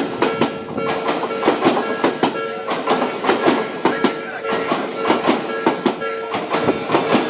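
Odakyu Line train passing over the level crossing, its wheels clacking over the rail joints in a quick, uneven run. The crossing's warning bell keeps ringing steadily underneath, as the crossing stays closed.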